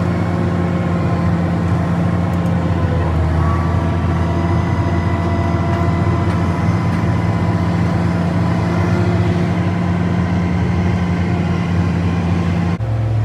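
Tractor's diesel engine running steadily at a constant pitch. The sound changes abruptly near the end.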